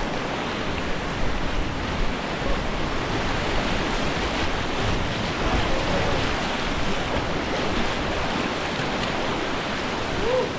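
Steady rushing of whitewater on a river, an even noise that holds at one level throughout.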